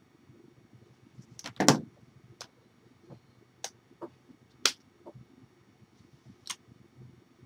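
Irregular sharp taps and knocks from a signer's hands striking each other and her body, with a louder double knock about a second and a half in.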